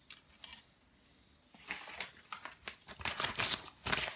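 Old steel scissors being handled and worked by hand, with a sheet of paper: a couple of clicks, then from about one and a half seconds in a run of scraping and rustling noises.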